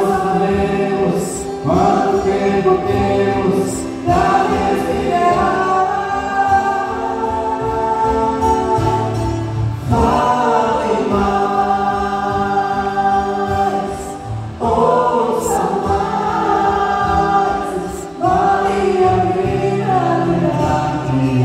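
Live worship song: a woman singing into a microphone with acoustic guitar accompaniment, in phrases a few seconds long with long held notes.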